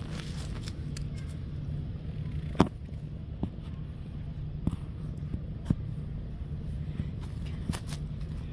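Steady low background rumble with a handful of sharp clicks scattered through it, the loudest about two and a half seconds in.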